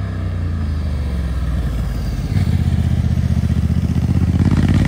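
A combustion engine running hard, its pitch sagging slightly and then holding steady. It gets louder about halfway through.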